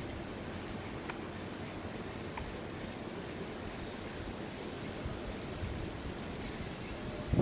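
Steady background noise with no distinct sound source, with a faint click about a second in.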